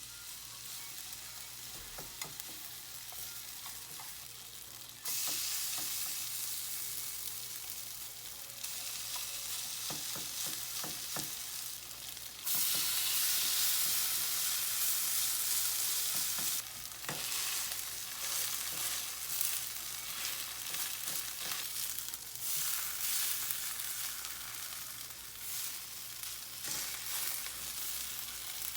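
Food sizzling as it fries in a pan, with light taps and scrapes of a utensil against it. The sizzle jumps louder several times and is loudest about halfway through.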